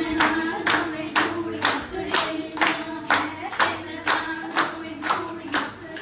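Hands clapping in a steady beat, about two claps a second, with singing over it that fades out near the end.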